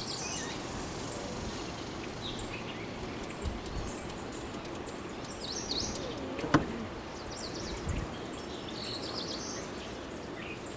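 Outdoor ambience: small birds chirping now and then over a steady background hiss, with one sharp click about six and a half seconds in.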